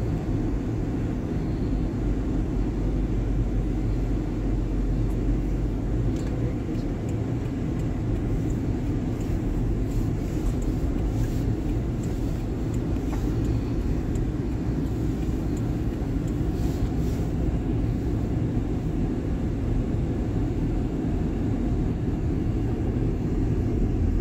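Steady low rumble of vehicle engines and road noise, heard from inside a car's cabin.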